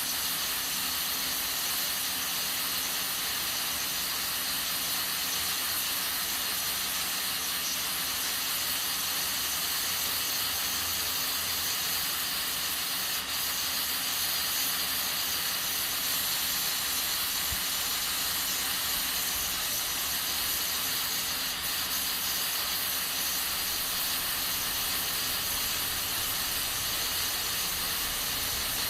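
Aluminium pressure cooker under pressure on a gas stove, hissing steadily as steam escapes from its valve while beans cook.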